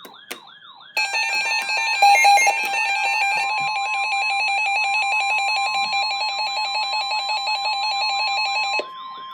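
Weather alert radio going off for an incoming warning: a warbling, siren-like electronic alarm, joined about a second in by a rapid pulsing beep and a steady NOAA Weather Radio attention tone near 1 kHz, with a patter of stepping data-like tones in the first few seconds. The beeping stops near the end while the warble and the steady tone go on.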